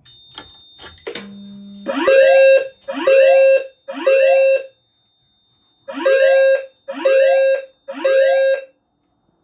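Fire alarm notification devices going into alarm from a key switch: a few clicks as the key is turned, a brief low hum, then about two seconds in a temporal-three evacuation pattern. Each tone sweeps up and settles on a steady low tone near 500 Hz, three short tones, a pause, then three more.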